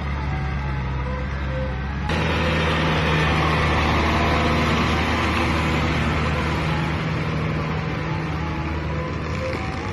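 Kubota M6040SU tractor's diesel engine running steadily under load while its rotary tiller churns through wet paddy mud. About two seconds in the sound changes abruptly, turning louder and noisier.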